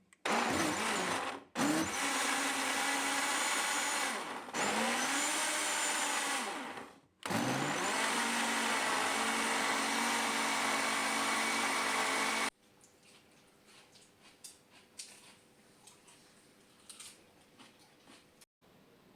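A small electric motor runs in four bursts, rising in pitch as it spins up each time. It stops for good about twelve seconds in, and a few faint clicks follow.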